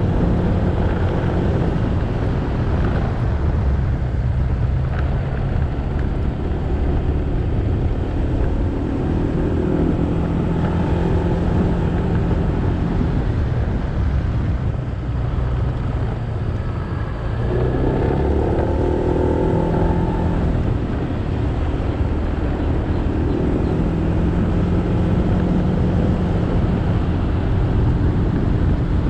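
Motorcycle engine running on the move, with wind and road noise; its pitch steps up and down as speed changes, with a louder, higher engine note for a few seconds a little past the middle.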